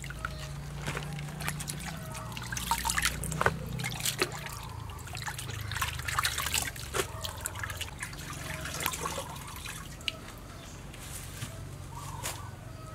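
Water trickling and dripping from freshly washed cabbage leaves as they are lifted out of a bowl of water and laid in a plastic colander, with many small scattered drips and splashes.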